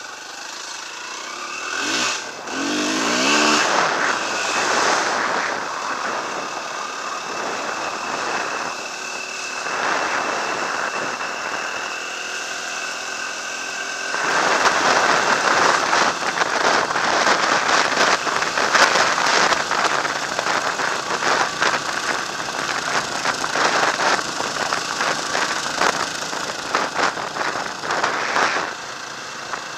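Dirt bike engine revving up as it pulls away, then running steadily under way. From about halfway it is heavily mixed with wind buffeting and rumble from riding the dirt road.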